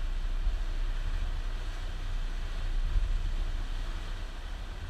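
A motorboat under way on the water: a steady low rumble with an even hiss of wind and water over it.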